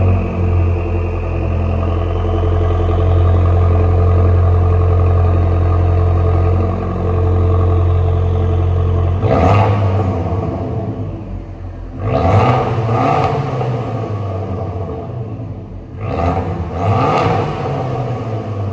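Abarth 595 Competizione's turbocharged four-cylinder idling high and steady after a cold start, through the stock Record Monza exhaust. About nine seconds in comes a sudden loud burst as the engine is heard through the Magneti Marelli Bombardone carbon exhaust, then two short revs a few seconds apart.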